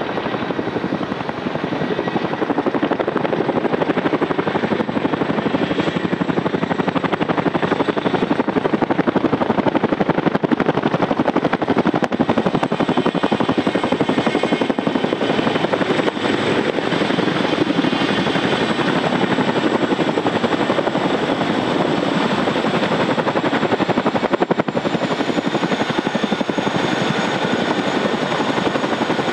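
Boeing MH-47G Chinook tandem-rotor helicopter landing: a steady, loud rotor beat over the high whine of its twin turboshaft engines. The whine steps down slightly in pitch near the end as the helicopter settles onto the ground.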